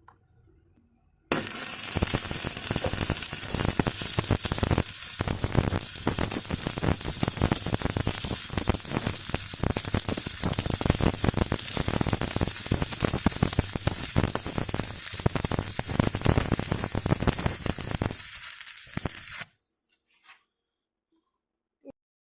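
Stick (shielded metal arc) welding arc crackling and sizzling steadily as a fillet bead is run on light square tubing. It starts abruptly a little over a second in, as the arc is struck, and dies away near the end, as the arc is broken.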